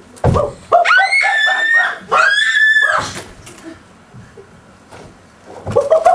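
A person screaming in a high pitch: a string of short shrieks, then one long scream about two seconds in, and more screams near the end.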